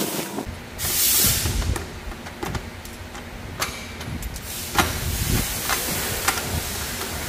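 Mechanical work noise: sharp clicks and knocks over a low rumble, with a loud burst of hissing about a second in.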